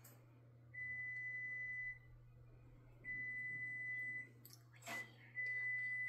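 An electronic beeper sounding three long, steady, high beeps, each a little over a second long and about a second apart, with a brief rustle or knock just before the third.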